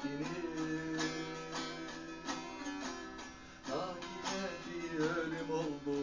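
A plucked string instrument played in a steady rhythm of about three strokes a second, carrying a Turkish folk tune.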